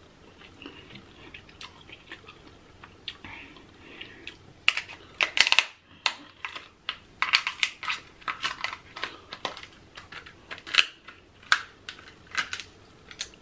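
Kitchen scissors cutting and cracking through a king crab leg's shell: faint crackles at first, then from about five seconds in a quick run of sharp snaps and crunches.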